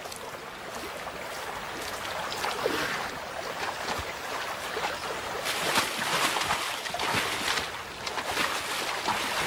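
Shallow river running over stones, with splashes from European bison wading through the water; the splashing picks up about halfway through.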